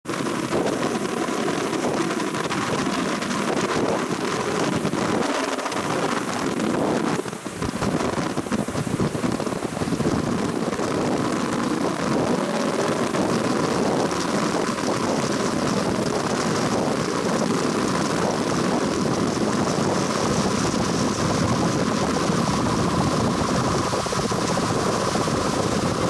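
Small motorboat under way: steady engine noise mixed with water rushing past the hull and wind buffeting the microphone, with a brief dip about seven seconds in.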